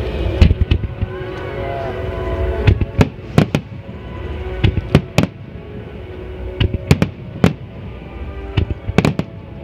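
Fireworks shells bursting in quick succession in a starmine barrage, with sharp bangs at irregular intervals, often two or three close together. Music for the synchronized display plays underneath with held tones.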